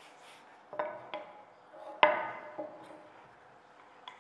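Wooden rolling pin knocking on a stone countertop while dough is rolled out. There are two sharp knocks about a second in and a louder one about two seconds in, each with a short ringing decay.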